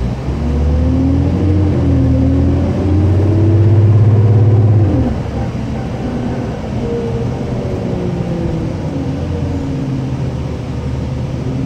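Diesel engine and drivetrain of a 2005 New Flyer D40LF transit bus heard from inside the passenger cabin, pulling under acceleration with a gliding whine. About five seconds in the loudness drops sharply, and the bus cruises on steadily.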